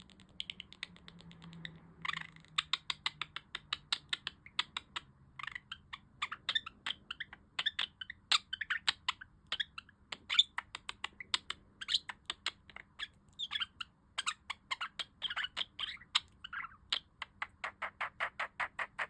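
Pet budgerigar warbling: a fast, clicky stream of chirps and ticks. It is soft for the first couple of seconds, louder after that, and stops abruptly at the end.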